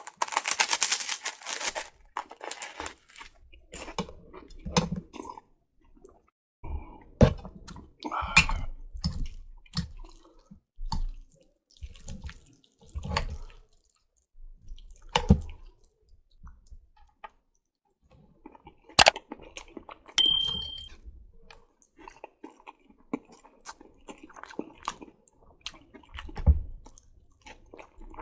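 Close-miked eating sounds of spaghetti and meatballs in red sauce: wet chewing and mouth noises in irregular bursts with small clicks. There is a dense noisy burst at the start and a brief high ring about twenty seconds in.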